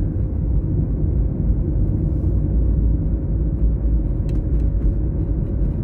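Steady low rumble of a car being driven along a road: engine and tyre noise, with a faint steady hum.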